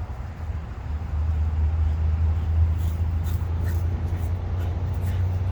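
Wind buffeting the microphone: a steady low rumble that grows louder about a second in.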